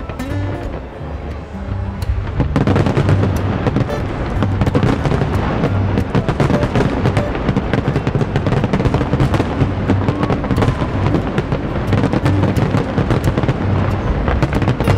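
Fireworks going off. About two and a half seconds in, a dense barrage of rapid bangs and crackling sets in and continues without a break, over music.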